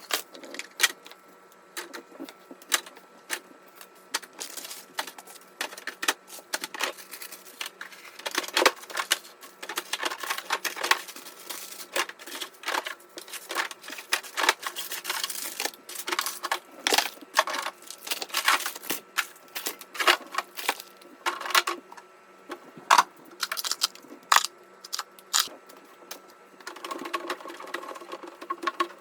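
Irregular clicks, taps and clatters of hard objects being picked up, moved and set down while a refrigerator is cleared out and cleaned, over a faint steady hum.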